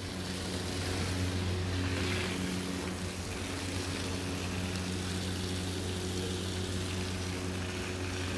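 Pressure washer running steadily: a constant motor hum under the hiss of its water jet spraying across a soaked handmade carpet.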